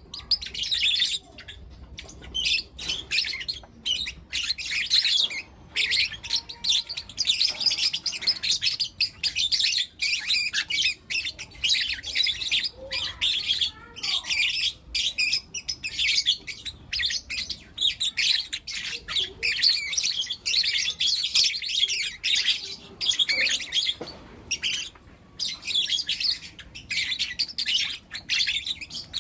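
A group of young lutino lovebirds chirping continuously, rapid high-pitched chirps overlapping one another with brief pauses.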